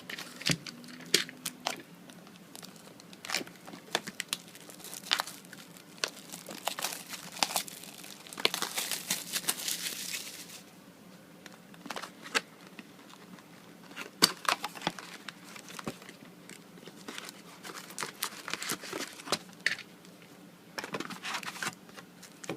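Packaging of a trading card booster box being crinkled and torn open, with scattered sharp crackles and taps. A longer stretch of tearing runs from about eight to ten and a half seconds in.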